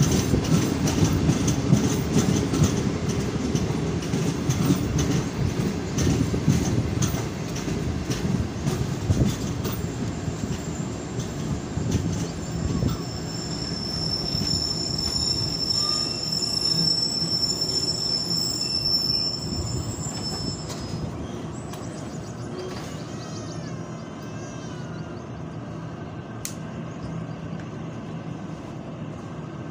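Passenger train coaches rolling slowly along the track, the wheels clattering over rail joints with a heavy rumble. A high steady wheel squeal sounds for several seconds midway. The running noise dies down as the train slows.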